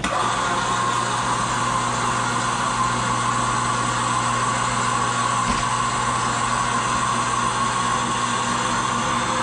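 Electric winch motor running steadily, driving the carrier arms of a home-built snowmobile storage lift; it starts suddenly at the push of a button, with a steady hum and gear whine.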